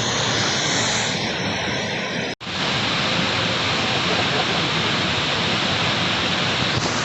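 Waterfall's steady, loud rush of falling water, heard up close. The sound drops out for a split second about two and a half seconds in, at a cut in the recording.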